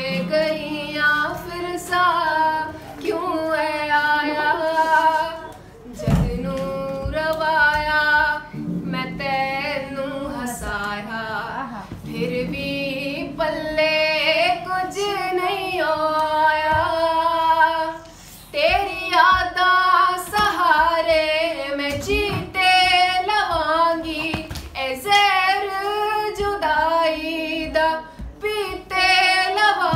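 A woman singing a slow melody in long held notes with vibrato, accompanying herself on an acoustic guitar.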